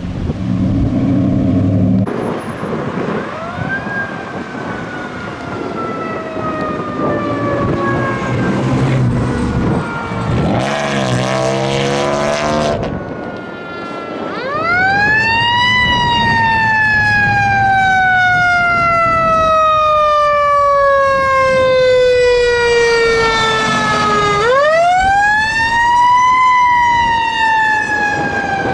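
Fire engine siren running code 3. A mechanical coaster siren spins up fast and winds slowly down, twice in the second half, after a slower falling electronic wail. A low engine rumble comes and goes underneath.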